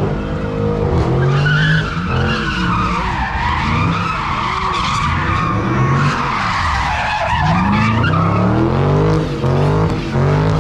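A car spinning donuts, its tyres screeching continuously with a wavering pitch while the engine revs up and down hard.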